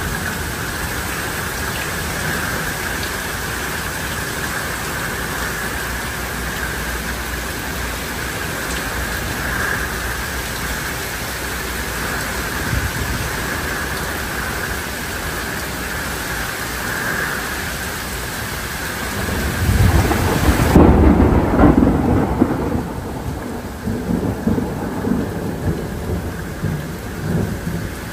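Steady downpour of rain, then a loud, deep roll of thunder that swells about two-thirds of the way through and rumbles on in waves for several seconds.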